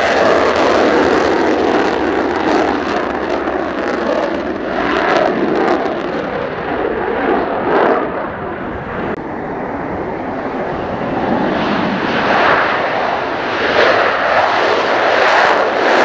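Mitsubishi F-2 fighter's jet engine at full power with afterburner during takeoff: a loud, dense jet noise that eases about halfway through and then builds again as the next jet rolls. Gusts of strong wind hit the microphone.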